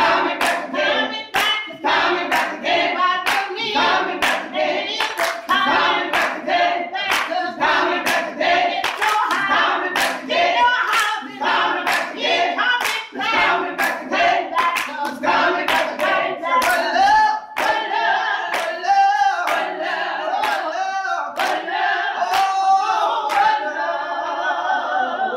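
A small mixed group of gospel singers singing together with steady hand clapping on the beat, about two claps a second. The clapping thins out and stops in the last few seconds while the singing holds on.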